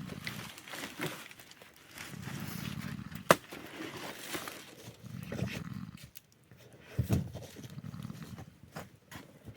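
A man snoring heavily: a rough, low rumble on each breath, coming about every two and a half seconds, four or five times. The snoring is "like a bear". A single sharp crack stands out about a third of the way in, among fainter clicks.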